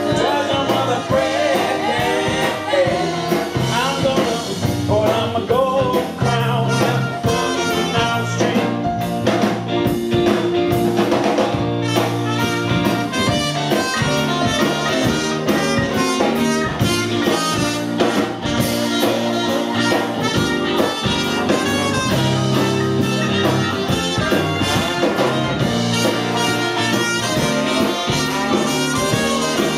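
A live soul-jazz band playing, with electric guitars, electric bass, keyboard and a brass section, and singers on microphones.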